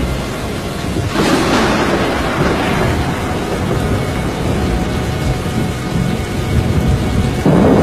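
Thunderstorm noise: heavy rain and rumbling wind. It surges suddenly about a second in and again, louder, near the end.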